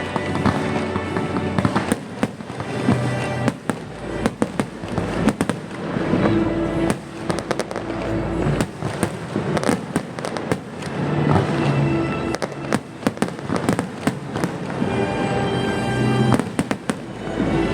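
Fireworks bursting and crackling in quick, irregular succession throughout, over music with sustained tones playing at the same time.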